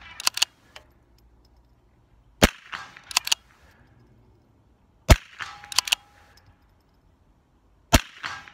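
Three shots from a .22 Long Rifle Anschütz biathlon rifle fired prone, sharp cracks about 2.7 s apart. Each shot is followed within a second by a few quick metallic clicks as the bolt is worked for the next round.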